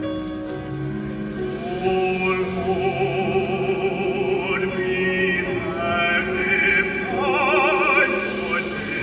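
Choir singing held chords while a high voice with wide vibrato sings above them, climbing higher and louder near the end.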